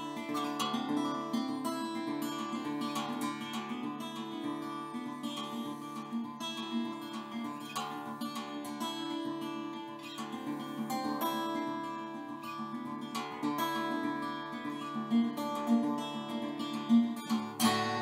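Background music: acoustic guitar playing, plucked and strummed.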